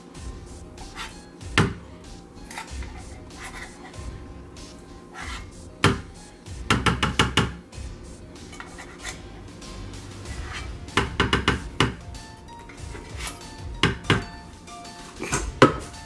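A rubber spatula scraping and knocking inside metal soup cans as the last of the condensed cream of chicken soup is cleared out into a plastic mixing bowl, with sharp clicks and two short runs of quick taps.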